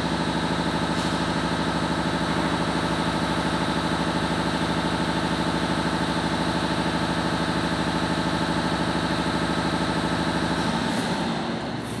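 A motor or engine running steadily with a fine, even pulse, winding down and stopping near the end.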